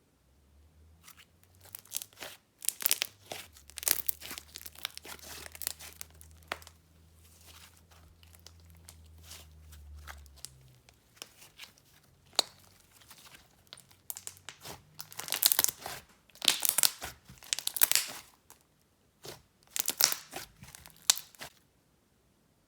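Jelly slime topped with Fimo slices being squished and stretched by hand, giving bursts of crackling, tearing sounds in three spells. A low hum sits underneath until about ten seconds in.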